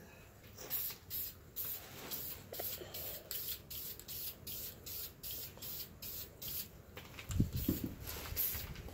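Aerosol spray paint can sprayed in a quick run of short hisses, about three a second. A low bump comes a little before the end.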